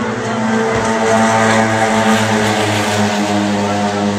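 A loud, steady engine drone that holds an even pitch with small dips and stops shortly before the end.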